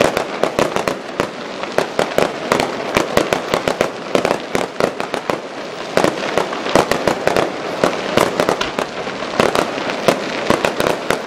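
Aerial fireworks display: shells bursting in a dense, unbroken run of sharp bangs and crackles, several a second.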